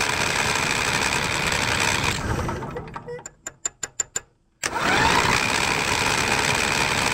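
John Deere L120 riding mower's electric starter cranking the engine twice without it firing: a steady crank that winds down about two seconds in, a quick run of sharp clicks, then the starter spinning up again with a rising whine. With the kill wires reconnected there is no spark, which points to one of the safety switches.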